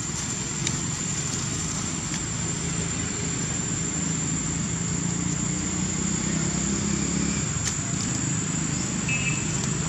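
Steady low engine hum, like a motor vehicle running some way off, a little stronger through the middle. A constant thin high-pitched whine sits above it, with a few faint clicks.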